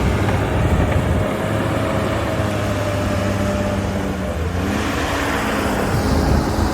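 Caterpillar D5G XL crawler dozer's diesel engine running under work. About five seconds in, its pitch rises as the engine revs up.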